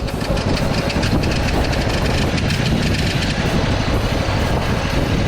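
Engine running steadily: a fast, even run of firing pulses that holds through the whole stretch.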